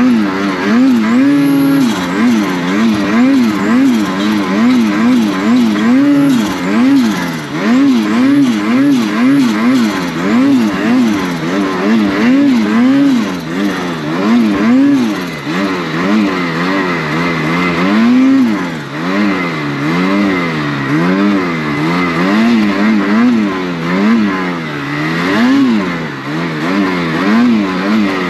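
Snowmobile engine revving up and down again and again as the sled is ridden through deep powder snow, its pitch rising and falling about once a second with the throttle.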